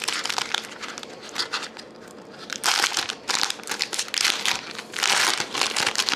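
Foil wrapper of a 2011-12 Panini Titanium hockey card pack being torn open and crinkled by hand, in uneven bursts of rustling that grow louder from about two and a half seconds in.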